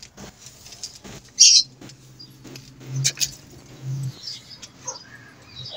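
Pigeons cooing in a loft, low swells about three and four seconds in, with a few high bird chirps. A short, sharp noise about a second and a half in is the loudest sound.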